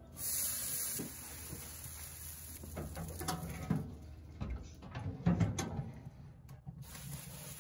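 Hiss of a pump spray bottle misting water, then several metal clunks and knocks as the offset smoker's steel lid is handled and shut.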